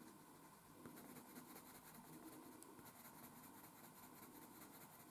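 Faint scratching of a blue coloured pencil shading on paper in quick, short strokes, going back over black pencil to soften it.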